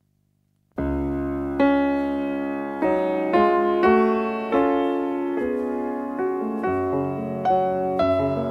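Piano music: a slow melody of struck notes and chords, each ringing and fading before the next. It starts about a second in after a brief silence.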